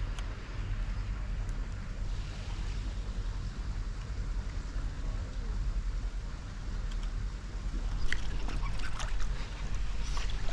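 Wind rumbling on the microphone over water lapping, with a few sharp clicks near the end.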